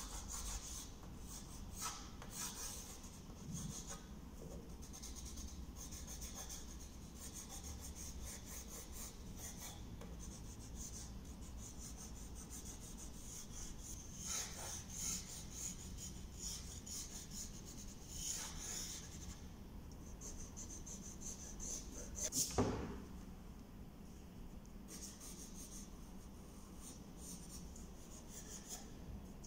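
Pencil scratching on drawing paper on an easel board, in a run of short and longer strokes as a portrait's lines are drawn. About three-quarters of the way through, one brief scrape is louder than the rest.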